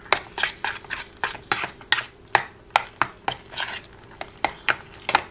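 Metal spoon stirring mashed steamed squash in a small stainless steel saucepan, clinking and scraping against the pot's sides and bottom about three times a second. The stirring stops near the end.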